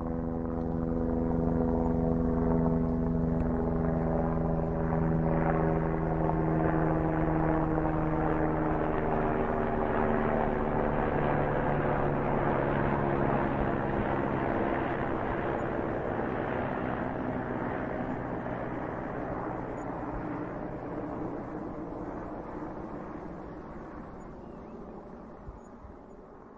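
Helicopter flying past: the drone of its rotor and engine swells in over the first couple of seconds, holds, then slowly fades away, its pitch sinking gradually as it goes.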